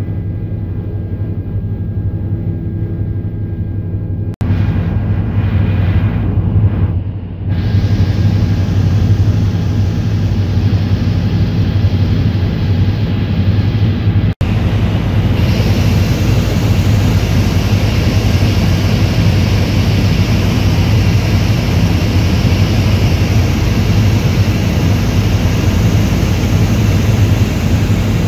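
Helicopter in flight heard from inside the cabin: a loud, steady low drone with rushing air noise. The sound grows brighter and hissier about seven seconds in, and drops out for an instant twice.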